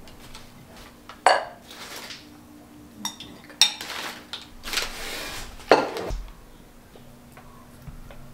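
Blue-and-white ceramic bowls and plates clinking against each other as they are unwrapped from newspaper: a few sharp clinks, some with a short ring, with the newspaper wrapping rustling in between.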